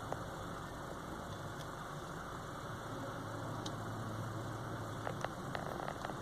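Steady low hum of a car idling, heard from inside the cabin, with a few faint clicks about five seconds in.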